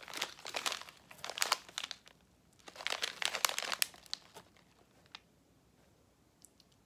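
Plastic snack bag of roasted macadamia nuts crinkling as it is handled, in two bursts of rustling a second or so apart, then only a few faint ticks.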